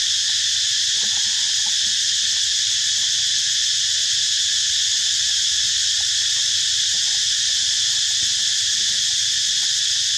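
Dense, steady, high-pitched chorus of forest insects, unbroken and even in level.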